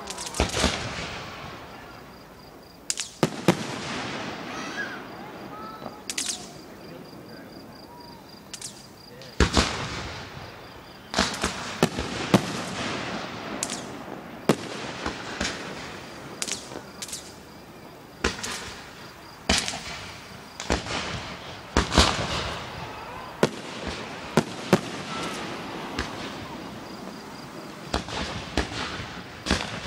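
Fireworks display: aerial shells bursting one after another at irregular intervals, each a sharp bang that fades off, some coming in quick clusters of several bangs.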